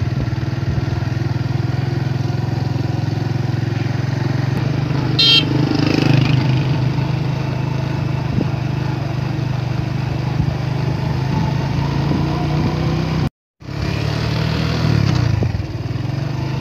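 Motorcycle engine running steadily while being ridden, heard from the rider's seat. A brief high-pitched tone sounds about five seconds in, and the sound drops out for a split second near the end.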